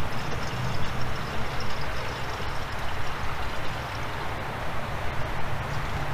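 Dexcool antifreeze pouring from a plastic jug into an engine's coolant reservoir, a steady running hiss of liquid over a low hum.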